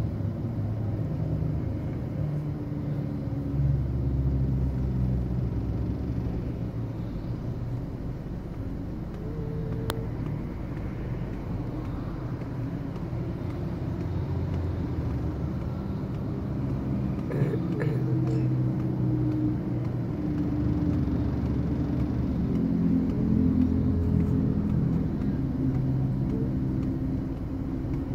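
Street traffic: motor vehicle engines running, a steady low rumble with engine tones that swell and fade as vehicles idle and pass.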